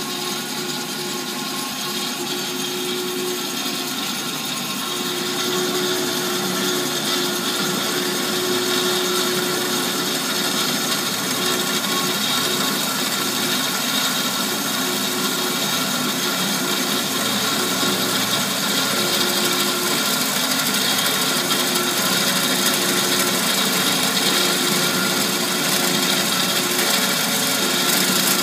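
AMADA HA250W automatic horizontal band saw cutting dry through metal stock, its blade steadily sawing under hydraulic feed. The sound holds one steady tone and grows gradually louder as the cut goes on.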